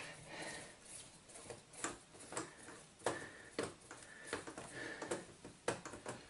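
Screwdriver turning small screws out of the plastic case of a Casio DH-100 digital horn: faint scraping with a scatter of light clicks as the screws and plastic parts are handled.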